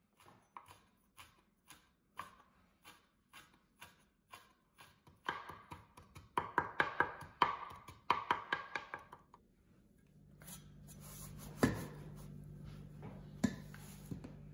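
Cleaver chopping ginger on a plastic cutting board: single chops at about two a second, then a fast run of louder mincing chops that stops about nine seconds in. After that a low steady hum comes in, with two single knocks.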